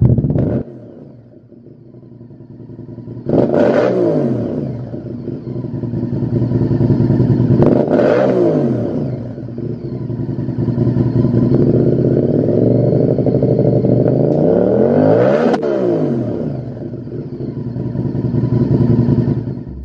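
Honda VTR1000's V-twin engine through a Lextek XP10 aftermarket silencer, revved from a low idle: sharp blips about three and eight seconds in, then revs held raised for several seconds, climbing to a last peak around fifteen seconds in before dropping back.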